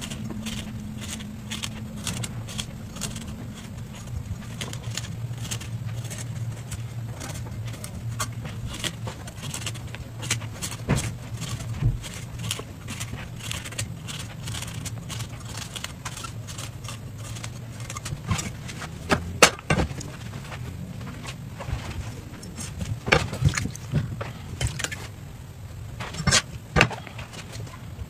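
A large kitchen knife cutting and tapping through watermelon rind against a cutting board: a long run of sharp clicks and knocks over a steady low hum, with several louder knocks in the second half.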